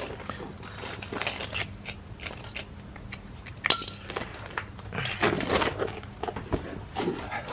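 Small metal fastener hardware (screws, washers, nuts) clinking and rattling as it is handled, with scattered clicks and rustling and one sharper click about halfway through.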